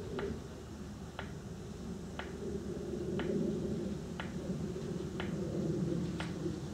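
Steady ticking, one sharp tick each second, over a low murmur of background voices.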